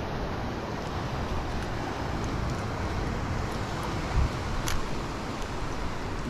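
Steady wind on the microphone mixed with the wash of ocean waves, with a brief low thump about four seconds in.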